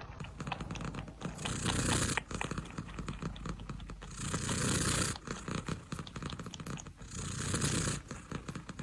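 Domestic cat purring close to the microphone, the purr swelling louder three times about three seconds apart.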